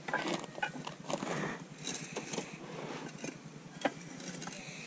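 Scattered light knocks and rattles of baseball bats being handled in a bucket, with the sharpest knock about four seconds in.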